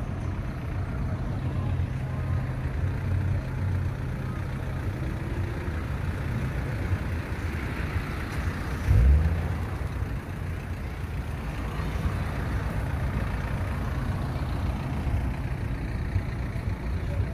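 Street traffic: vehicle engines running with a low rumble and the noise of vehicles passing on the road. A short, loud, low thump comes about halfway through.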